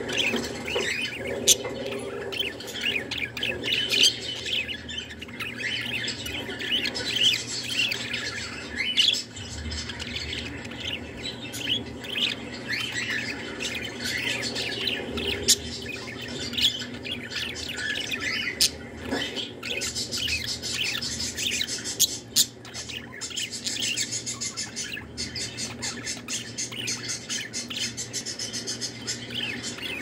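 Budgerigar warbling: a continuous, chattering stream of quick chirps and squawky notes with a few sharp clicks, the song of a contented budgie.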